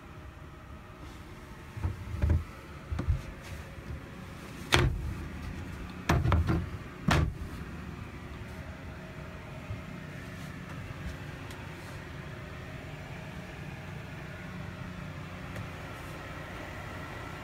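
Wooden locker door in a sailboat cabin being handled and shut: a few dull knocks, then sharp clicks and knocks midway. After that a steady low hum.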